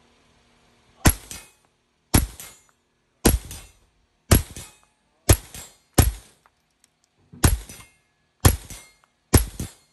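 Rifle shots fired one at a time, nine in all at a pace of about one a second, each sharp report followed by a short echo off the walls and roof of the covered range.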